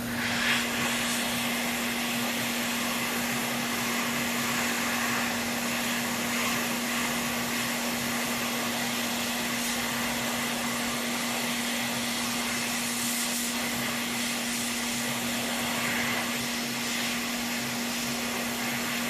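Small electric air tool running steadily, a rush of moving air that switches on about half a second in, over a low steady hum.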